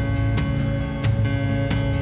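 Background music: strummed guitar over a steady beat.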